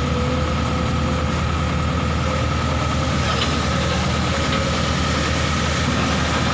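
Excavator's heavy diesel engine running at a steady pace, with a steady high whine above its low drone.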